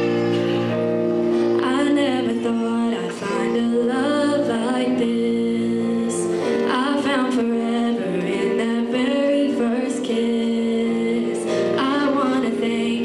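High school choir singing a Christmas song over held accompanying chords, with voices moving in melodic lines throughout.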